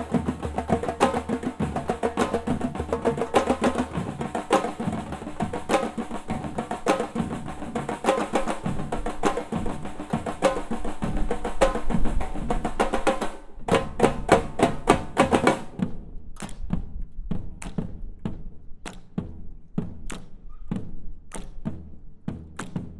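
A percussion ensemble of drums playing a funk groove together. About halfway through, the full groove drops away into a short run of sharp strokes, followed by sparser, separate drum hits.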